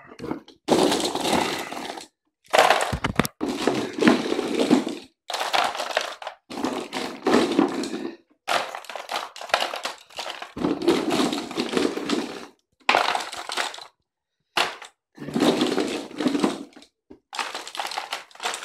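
Handfuls of loose loaded 12-gauge shotgun shells, plastic hulls with brass heads, clattering as they are dropped and pushed into a plastic ammo box. The clatter comes in a series of bursts, each a second or two long, with short pauses between.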